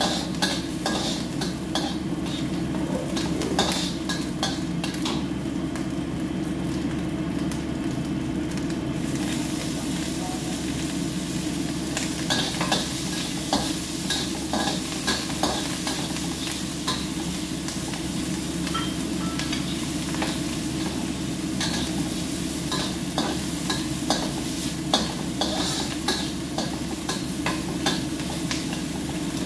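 Metal spatula scraping and knocking against a wok as food is stir-fried in it, with a steady sizzle that grows louder about nine seconds in. A steady low hum runs underneath.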